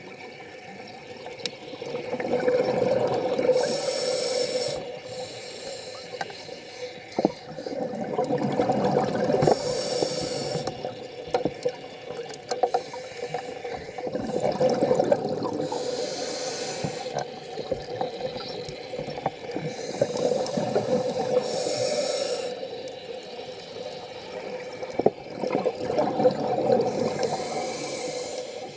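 A scuba diver breathing through a regulator underwater: bursts of exhaled bubbles gurgling, each followed by a hiss, in a slow cycle of about five breaths, roughly one every six seconds.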